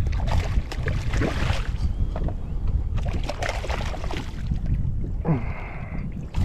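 Hooked redfish thrashing and splashing at the surface beside the boat as it is brought in by hand, in two bouts, over a steady wind rumble on the microphone. A short steady buzz sounds a little after five seconds.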